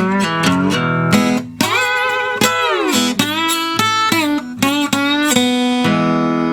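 Flat-top acoustic guitar played with a brass tube slide: a run of plucked notes, with the slide gliding the pitch up and down several times.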